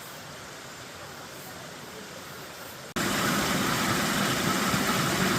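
Steady rush of a mountain valley stream. About three seconds in it cuts abruptly to a louder, fuller rush of water.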